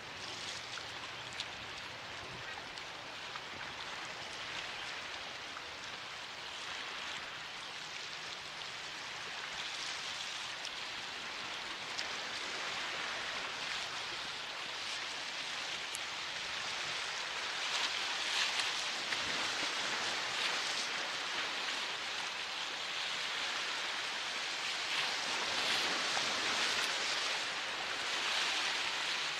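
Rushing, hissing water from the bow spray and wake of a high-speed catamaran ferry running at speed, growing gradually louder as the ferry comes closer.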